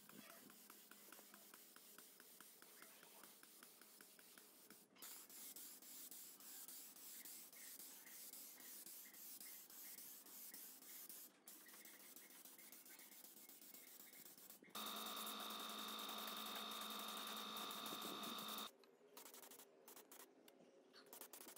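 Faint hiss of a compressed-air paint spray gun spraying paint, in several spells, with a louder steady stretch of hiss partway through.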